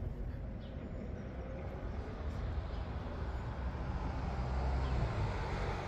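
Bus engine rumbling low, slowly growing louder to a peak about five seconds in and then easing off.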